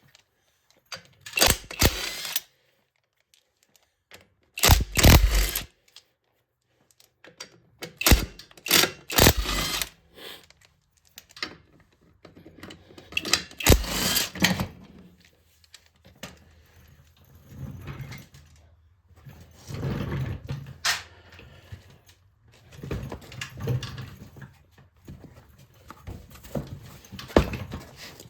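Power impact wrench run in short bursts, about seven in the first half, loosening the wheel's lug nuts, followed by quieter knocks and clatter of handling the wheel.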